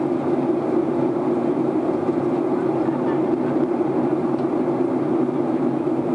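Steady cabin noise inside a Boeing 737-900ER in flight: the constant low drone of its CFM56-7B jet engines and the airflow over the fuselage, heard from a window seat.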